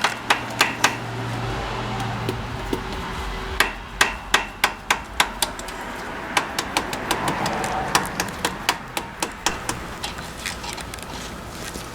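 Small hammer tapping a connecting-rod cap on a Ford Windsor V8's crankshaft to work it loose, in quick runs of light taps with short pauses between.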